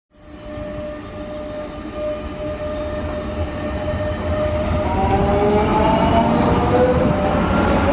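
Renfe Cercanías commuter electric multiple unit's traction equipment whining under power as the train accelerates. A steady tone is joined about five seconds in by several tones that climb in pitch, and the sound grows louder throughout.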